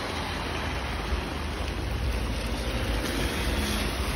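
Heavy rain falling on a wet street, a steady hiss with a low rumble underneath. A car moves close by on the wet road, and its engine hum shows faintly under the rain near the end.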